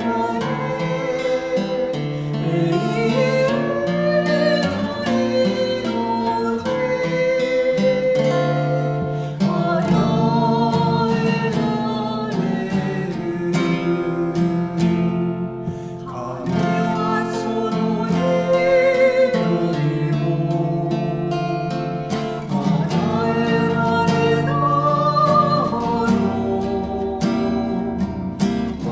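A man singing a worship song in Japanese, accompanying himself on an acoustic guitar.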